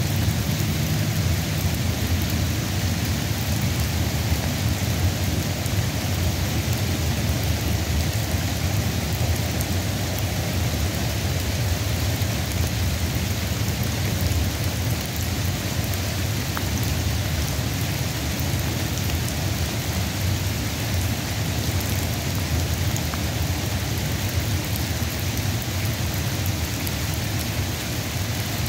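Sun-shower rain falling steadily: a dense, even hiss with a steady low rumble underneath.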